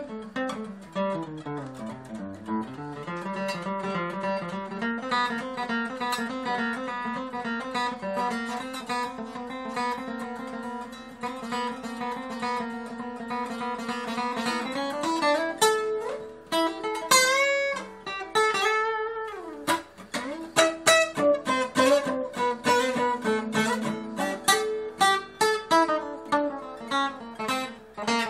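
Solo steel-string acoustic guitar, fingerpicked and improvised. Long ringing notes give way, about halfway through, to string bends and a falling slide, then sharper, separately plucked notes.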